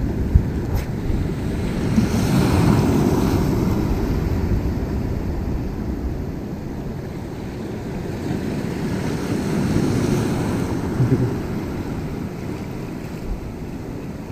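Sea waves washing in against the shore, swelling about two seconds in and again about nine seconds in, with wind rumbling on the microphone.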